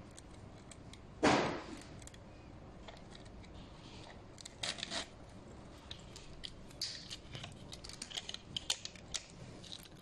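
Hand handling of electric fence polytape and a stainless steel buckle splicer: the woven tape rustling and scraping as it is pulled through, with light metallic clicks and ticks from the buckle. The loudest sound is one short scrape about a second in; the clicks come closer together in the second half.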